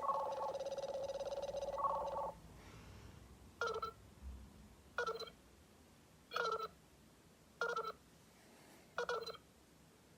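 Nothing Phone 1 playing its new Android 13 ringtones: a steady, buzzy tone that stops a little after two seconds in, then a different ringtone of short chirps repeating evenly, a little over a second apart.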